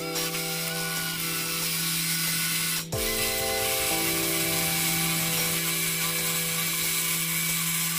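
Power drill spinning a wide cutter bit into a wooden rod: a steady motor whine with the hiss of the bit chipping the wood away, broken off briefly about three seconds in.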